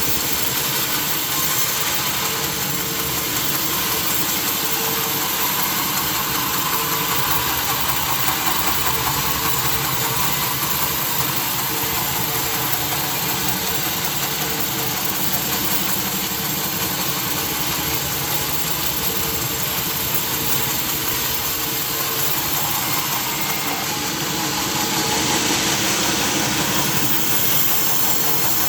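Sawmill machinery running steadily, a continuous engine-like drone with a constant hum. It grows a little louder and harsher near the end.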